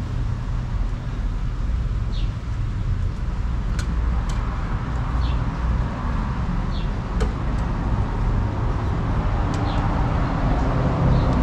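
Steady low background rumble, with a few light, sharp clicks from the CNC robot's stylus and shuttle being handled on the calibration fixture.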